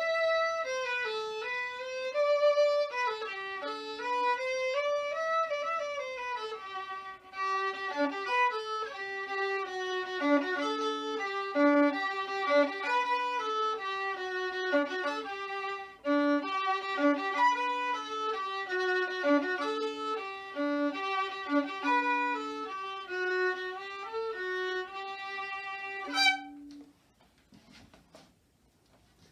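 Solo violin playing a waltz melody, with a low note sounding under the tune at times. The playing stops a few seconds before the end.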